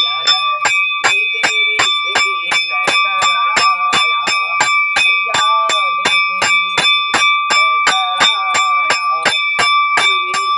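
Metal temple bell struck rapidly and evenly, about three strikes a second, its ringing tone carrying on between strikes. People's voices can be heard underneath the ringing.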